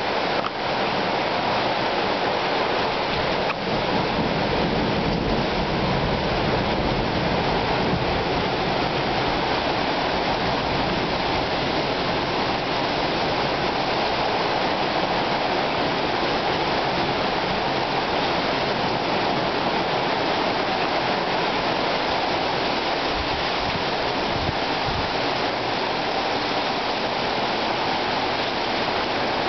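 Heavy rain falling steadily, a constant even hiss of water that keeps up without a break.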